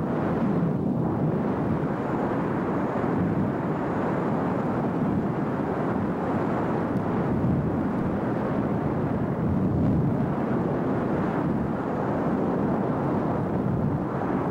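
Wind rushing over the microphone of a skydiver's camera during the descent: a steady, dense rush with no distinct tones.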